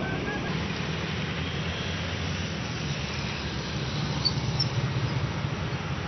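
Steady low rumble of outdoor street background noise, with two faint short high chirps about four and a half seconds in.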